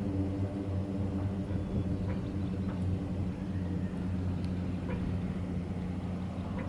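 A steady, unchanging engine drone with a low hum, with a few faint light clicks over it.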